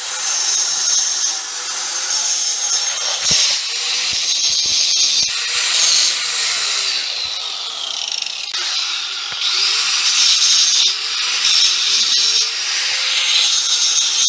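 Power grinder grinding a rough cast-aluminum wheel to round it off: a loud, continuous high grinding hiss over a motor tone that wavers in pitch as the tool is pressed on and eased off, with a few sharp knocks.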